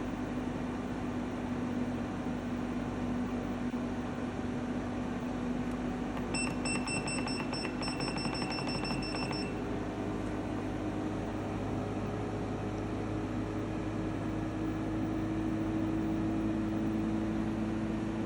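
EcoFlow WAVE portable air conditioner running with a steady droning hum made up of several held tones, a noise the owner calls unpleasant and loud. The hum tones shift in pitch partway through. A run of short, high electronic beeps comes about six seconds in and lasts about three seconds.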